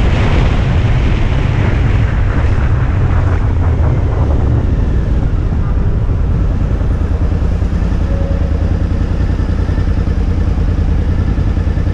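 Suzuki V-Strom motorcycle slowing down: wind and road noise fade over the first few seconds, leaving the engine's low, pulsing run at walking pace.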